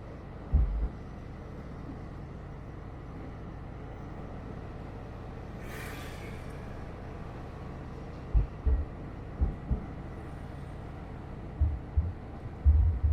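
Heritage tram running with a steady rumble, its wheels knocking over rail joints in low thuds that come mostly in pairs, with a denser run of knocks near the end. A brief hiss of air sounds about six seconds in.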